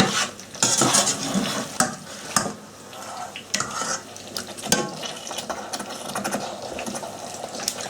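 Chicken being stirred in thick korma sauce in a pan, the spoon scraping and knocking against the pan with wet sloshing of the sauce. There are scattered sharp clinks throughout.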